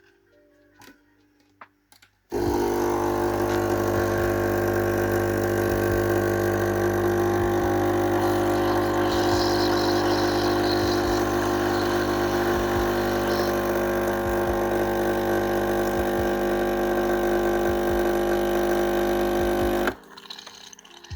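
A loud, steady machine hum, like a running motor. It starts suddenly about two seconds in and stops suddenly near the end.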